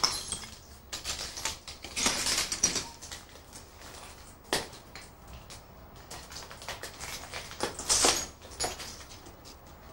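Footsteps crunching and grinding on broken glass shards covering a floor, in uneven crackling bursts, the loudest around two seconds in and again near eight seconds.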